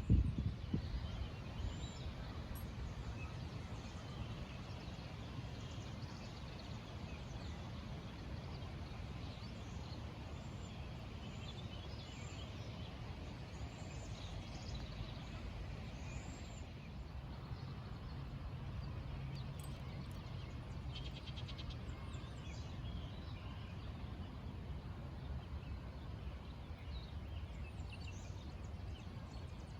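Outdoor ambience: small birds chirping and singing in short scattered calls over a steady low rumble of background noise.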